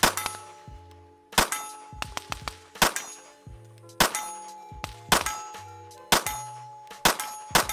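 9mm Glock 19 clone pistol with a compensator firing a slow string of about six shots, roughly one a second. Each shot is followed by the clang and lingering ring of a steel target being hit.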